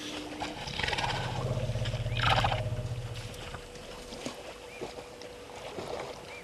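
A low, pulsing animal call that swells to its loudest about two seconds in and dies away about a second later, over a steady outdoor hiss.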